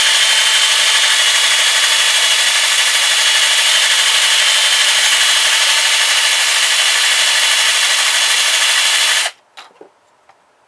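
Handheld power tool running steadily and grinding against a stuck metal screw, then cutting off sharply about nine seconds in.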